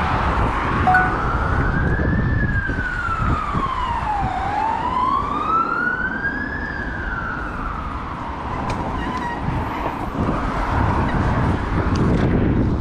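Emergency-vehicle siren in a slow wail, rising and falling in pitch twice and fading out after about nine seconds, over a low rumble of street and wind noise.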